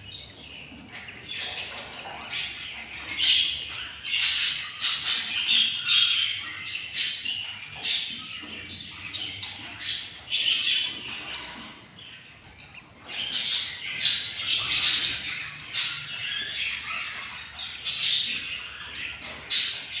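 Budgerigars calling: many short, high squawks in two busy bouts, with a lull about halfway through.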